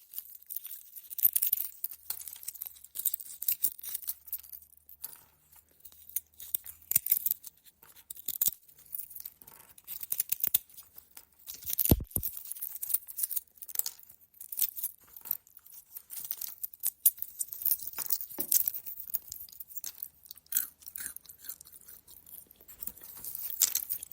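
Walnut shells being cracked and broken apart: a long run of irregular sharp cracks and crunching shell fragments. One heavier crack comes about halfway through.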